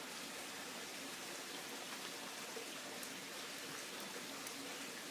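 Steady faint hiss of outdoor background noise, with a few faint ticks.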